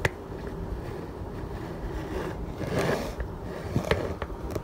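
Low rumble of a handheld phone camera being moved about, with a few light clicks and a brief soft scrape a little past halfway, from handling a plastic bowl and utensils on a kitchen counter.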